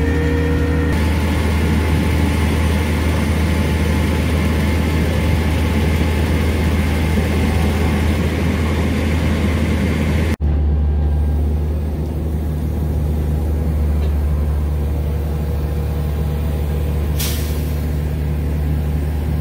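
Flatbed tow truck running on the road, a steady low engine drone under road and wind hiss. After a sudden cut about ten seconds in, a steadier low engine drone with little hiss, and a short hiss near the end.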